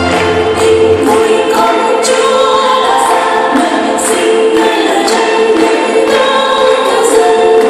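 Children's choir singing a Christmas carol together, many voices on a steady melody.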